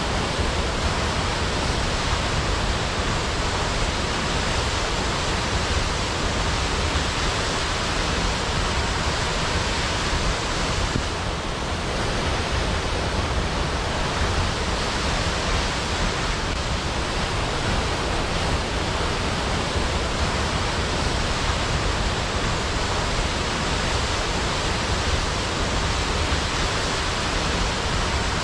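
Waterfall: a steady, even rush of falling water with no breaks or distinct splashes.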